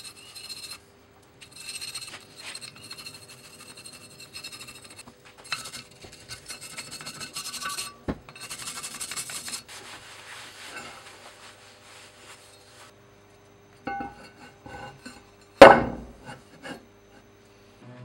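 Cloth and hand rubbing and scrubbing over a steel broad axe head and a wooden workbench in uneven bursts of strokes. About three-quarters of the way through comes one sharp, loud knock.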